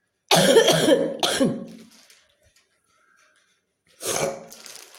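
A woman's deep, persistent cough: two harsh coughs in quick succession about a second in, then after a pause another short cough near the end.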